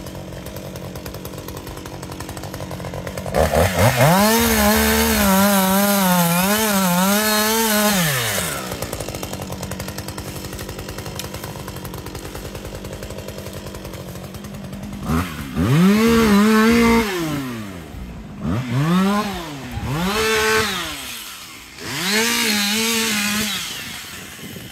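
Petrol chainsaw idling, then revved hard for about five seconds with the engine pitch wavering under load. It drops back to idle and is then revved again in four shorter bursts, each rising and falling in pitch.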